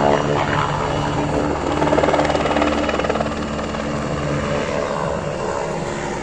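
Helicopter flying a low pass, the rapid beat of its rotor blades loudest about two seconds in and easing off as it moves away.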